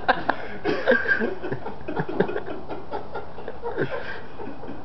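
Men chuckling and laughing, with bits of low indistinct talk.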